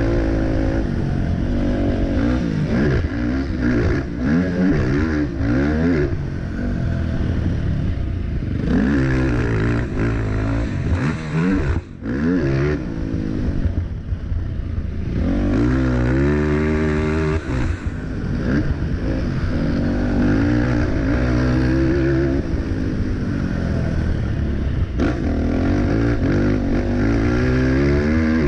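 Racing quad ATV engine on a motocross track, revving up and down as the throttle is worked through the corners. The engine note dips briefly about twelve seconds in, then climbs steeply in pitch a few seconds later.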